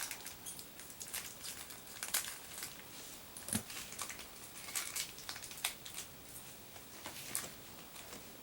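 Plastic toy packaging being handled, with scattered sharp crinkles and clicks at irregular intervals.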